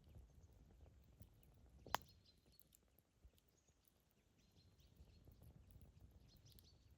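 Campfire burning faintly: a low rumble of flames with scattered light crackles, and one sharp pop about two seconds in.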